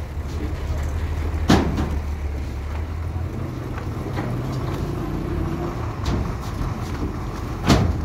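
Fully loaded Mercedes-Benz 2638 ten-wheeler truck's diesel engine running at low revs as the truck creeps forward, a steady low rumble. Two sharp knocks stand out, one about a second and a half in and one near the end.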